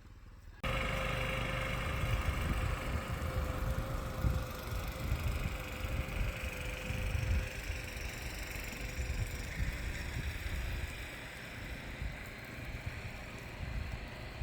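Small motorized wheelbarrow cart running while used as a snowplow: a low rumble with a steady whine that fades out about two-thirds of the way through.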